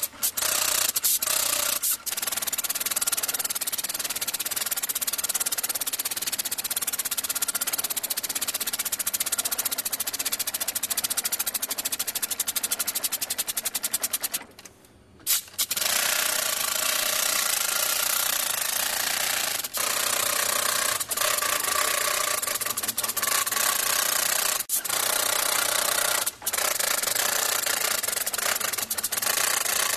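Robotic hand-tufting gun running, its needle driving yarn into the backing cloth with a rapid, steady mechanical rattle. It stops for about a second halfway through, with a few brief dropouts later on.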